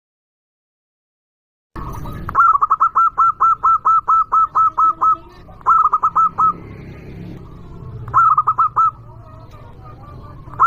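Zebra dove (perkutut) singing its rapid staccato cooing song: a long run of about a dozen quick notes, then two shorter phrases, starting after a silent gap of a second and a half or so.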